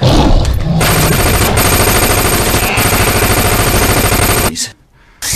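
Sustained rapid automatic gunfire. It cuts out suddenly about four and a half seconds in and starts again just before the end.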